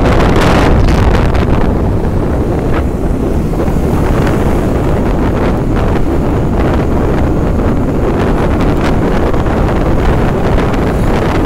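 Loud wind rushing and buffeting over the microphone of a rider on a moving motorbike, a steady low rumble broken by frequent short gusts.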